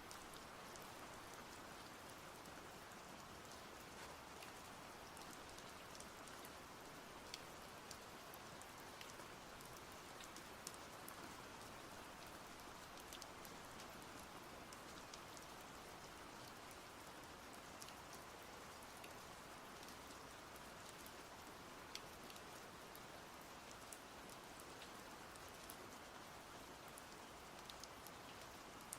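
Steady, soft rain: an even hiss with scattered individual drop taps.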